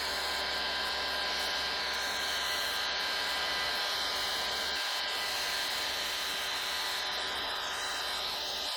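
DeWalt DWS779 sliding compound miter saw's motor running at full speed with a steady whine, while the blade cuts a short aluminium peg to length.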